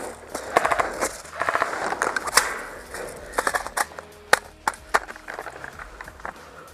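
Airsoft guns firing: several short bursts of rapid clicks, then a few single sharp shots.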